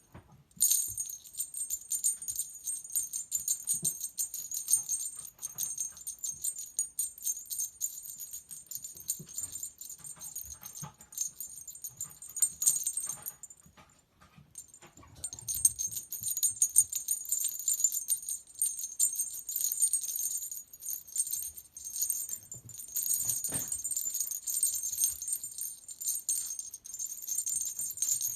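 Small jingle bell jangling in quick, continuous shakes, with a short pause about halfway through.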